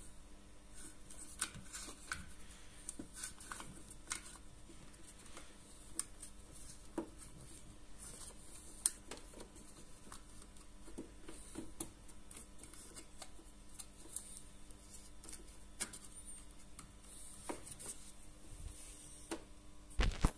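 Handling noise as hands fit a plastic push-button switch block and its wires back into a range hood's metal housing: scattered light clicks, knocks and rubbing over a faint steady hum, with a louder knock near the end.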